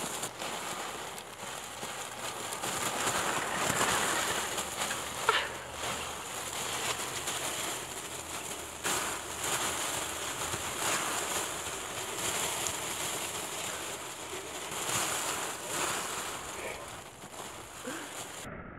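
Masses of plastic ping pong balls rattling and rustling as two Italian greyhound puppies wade and tussle through them, a steady clattering hiss with small rises and a few sharper clicks.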